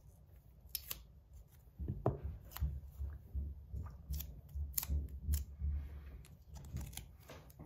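Fingers picking and peeling sticky tape off a metal fidget slider. It makes irregular sharp clicks and crackles over a low handling rumble that grows louder about two seconds in.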